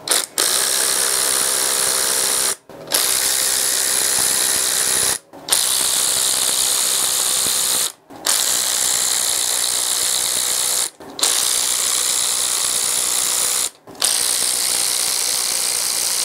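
Cordless electric ratchet running in six bursts of about two and a half seconds each, with brief pauses between them, spinning bolts out of the engine's cylinder head.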